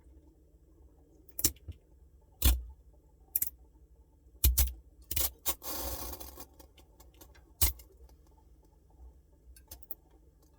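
Samsung Bespoke refrigerator making a faint steady low hum, broken by a string of irregular sharp clicks and ticks and a brief rushing hiss about halfway through.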